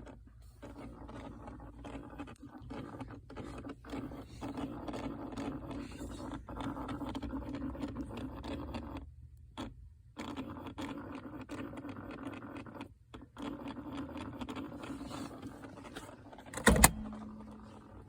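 Scratching, scraping noise in a 2006 second-gen Toyota Prius, which the owner hears seemingly from the gas pedal, though others suggest the ABS pump or inverter pump. The scratching runs on with two brief breaks, and there is one sharp knock near the end.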